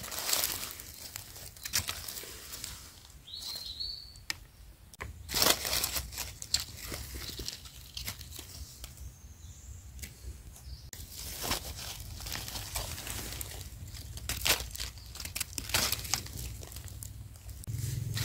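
Dry fallen leaves crackling and crinkling in irregular bursts as hands brush through the leaf litter and handle mushrooms, loudest about five seconds in.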